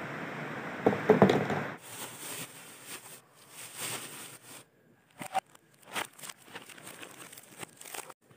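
Plastic packaging crinkling and rustling as it is handled, with a few louder handling knocks early on, then a run of light sharp taps and clicks on plastic containers.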